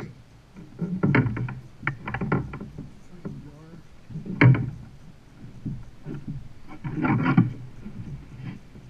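Knocks and bumps on a plastic kayak hull, coming in three clusters with a few quieter taps between them.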